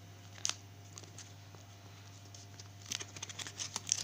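Small clicks and plastic crinkling as trading cards in plastic sleeve pages of a ring binder are handled, sparse at first and busier near the end.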